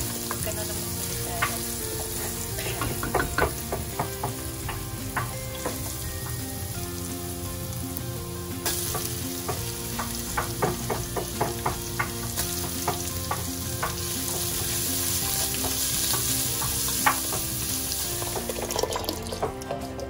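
Garlic, ginger and then sliced onions sizzling in hot oil in a metal pot, with a wooden spatula scraping and tapping against the pot in quick clicks as it is stirred. The sizzle grows louder about nine seconds in.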